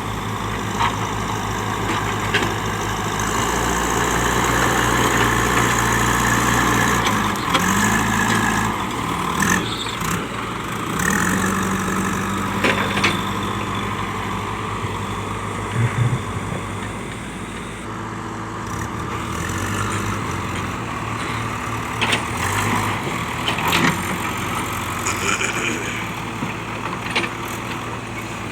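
Backhoe loader's diesel engine running, revving up around 8 and 12 seconds in as it works under load. Scattered sharp knocks and clanks are heard throughout.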